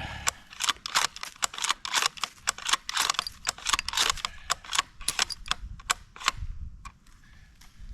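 Remington 700 ADL bolt-action rifle in .270 Winchester being unloaded: the bolt is worked back and forth over and over to cycle the cartridges out of its blind magazine, a quick run of metallic clicks that thins out after about six seconds.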